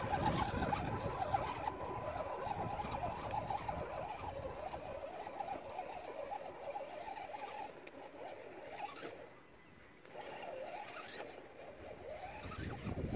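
Scale RC rock crawler's electric motor and gears whining while it crawls up a loose dirt slope, its tyres crunching over dirt and stones. The sound fades as it climbs away and nearly dies out about ten seconds in.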